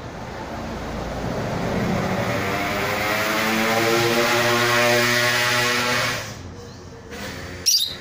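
A motor vehicle engine running, growing steadily louder to a peak, then cutting off abruptly about six seconds in. A single sharp click follows near the end.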